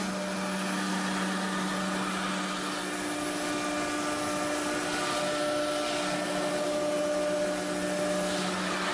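The 9 kW spindle of a 4-axis foam CNC router running at steady speed, a constant whine over a steady hiss. The pitch shifts slightly right at the end.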